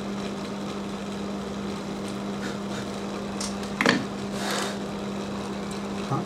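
A steady machine hum at one constant pitch. About four seconds in there is a sharp click, followed by a short rustle, and a smaller click comes near the end.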